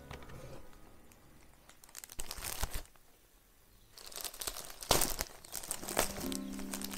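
Thin plastic packaging bag crinkling as its adhesive tape strip is peeled open and the wrap is pulled back. It comes in spells with a quiet pause about halfway, then louder crinkling with sharp snaps of tearing plastic.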